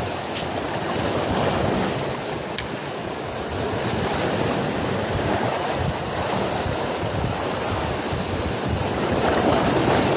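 Sea waves surging and breaking over a rocky reef shore, a steady wash of surf that swells a little near the end.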